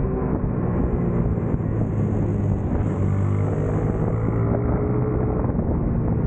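Racing motorcycle engine running hard, heard up close from a camera mounted on the bike, its note shifting up and down in pitch as it is ridden through corners.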